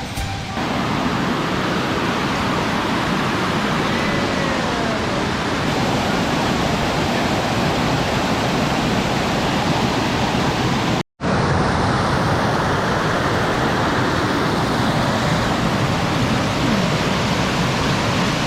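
Waterfall's steady rushing roar of falling water, cut off for an instant about eleven seconds in and then resuming.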